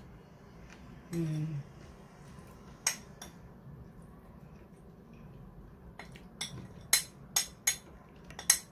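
Metal spoon clinking and scraping against a ceramic plate while cutting into a slice of kunafa: one sharp clink about three seconds in, then a quick run of about six clinks near the end. A brief vocal murmur about a second in.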